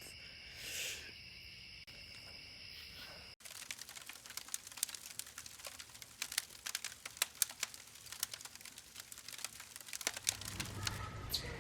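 Night insects chirring steadily for about three seconds, then a sudden cut to dense, irregular crackling and clicking.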